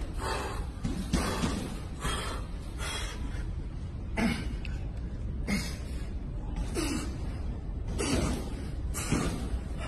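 A man breathing hard in short, sharp bursts about once a second, some of them voiced grunts, straining through heavy barbell curls.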